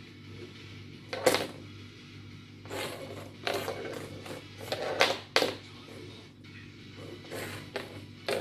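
Plastic fidget spinner batted by a kitten, skidding and clattering on a wooden floor in several short bursts, the loudest about a second in and again midway.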